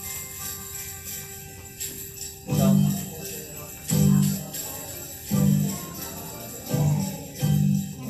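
Instrumental intro of a Christmas sing-along backing track: jingle bells shaking, joined about two and a half seconds in by loud low notes that come roughly every second and a half.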